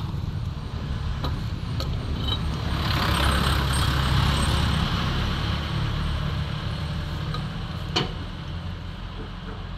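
Steady low rumble with a motor vehicle's noise swelling and fading between about three and six seconds in, and a single sharp click about eight seconds in.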